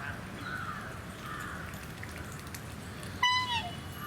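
Black swan giving one short, high bugling call about three seconds in, dipping in pitch at its end, over steady background noise.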